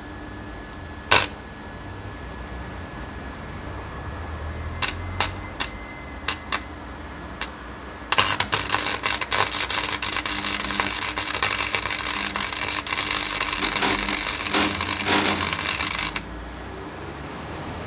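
Royalcraft MIG 150 wire welder's arc: a few short arc strikes, then a steady weld run of about eight seconds that cuts off suddenly.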